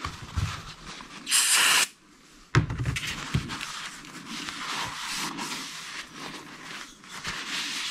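A short hiss of aerosol cleaner from a dye-penetrant kit's spray can, about half a second long, a little over a second in. Then a cloth rag rubs around a ceramic bowl to wipe it clean.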